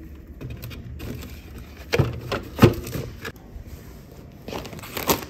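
Handling noises around a refrigerator: rustling with a few sharp knocks and clatters, the loudest a pair of knocks a couple of seconds in and another clatter near the end.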